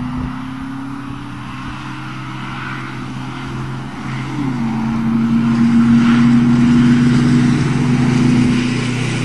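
Two pickup trucks racing under hard acceleration: a 1996 Dodge diesel and a newer Ford gas V8. Engine notes climb steadily, one drops sharply about four seconds in as a gear change, and the sound grows louder after that.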